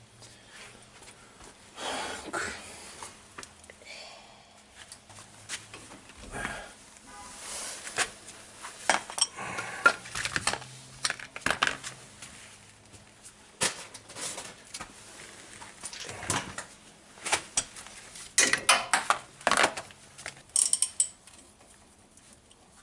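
Irregular metallic clinks, knocks and scrapes of hand work on a disc brake caliper and its parts, coming in uneven clusters.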